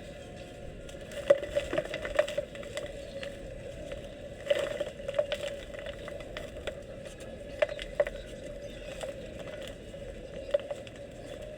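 Dry, crumbly red dirt clods being crumbled, giving irregular crunches and sharp crackles, with denser clusters of crunching at a few moments.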